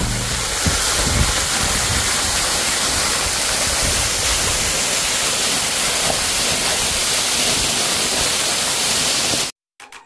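Waterfall running down a steep rock face: a steady rush of falling water and spray that cuts off suddenly near the end.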